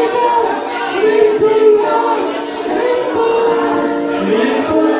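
A man singing into a handheld microphone, with long held notes that slide between pitches.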